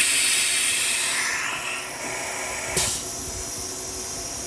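Compressed air hissing out of the spindle of a Felder Profit H08 CNC router while its pneumatic tool clamp is released. The hiss is loud for the first two seconds, then drops to a lower steady hiss, with a sharp click and a short burst of air about three seconds in.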